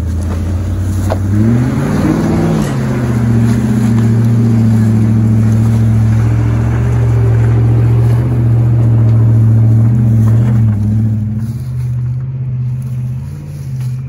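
Land Rover Discovery 2's engine revving up under load as it crawls up a rocky climb. The revs rise about two seconds in, hold high and steady for several seconds, then ease off near the end.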